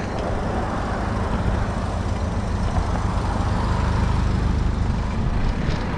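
Steady low rush of wind and road noise on an action camera's microphone while riding a bicycle, with road traffic mixed in.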